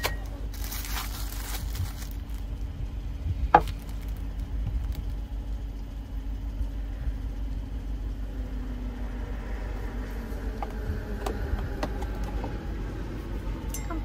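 A paper drink carton is torn open with a crackle, then a single sharp knock. Later, café au lait is poured from the carton into a glass, the pouring sound rising steadily in pitch as the glass fills. A steady low hum runs underneath.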